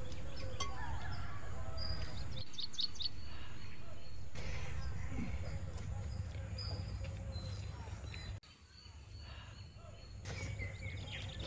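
Outdoor ambience: birds chirping, with a quick run of high notes about three seconds in, over a steady low background rumble that drops away briefly around eight seconds in.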